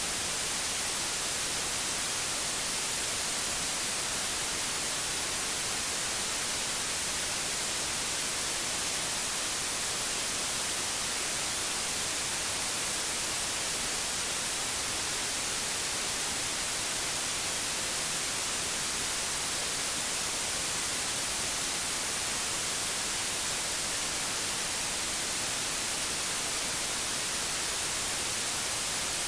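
Steady synthetic white noise: an even, unchanging hiss, brightest in the high frequencies.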